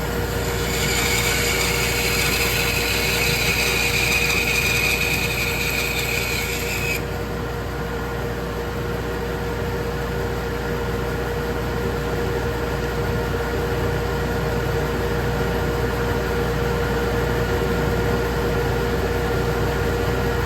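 Bandsaw running with a steady hum, its blade cutting through a wooden drawer blank; the cutting noise stops abruptly about seven seconds in, leaving the saw running freely.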